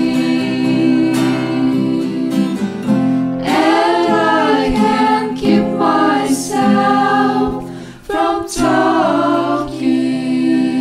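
A song playing: layered singing voices holding and sliding between notes over plucked guitar, dipping briefly about eight seconds in before resuming.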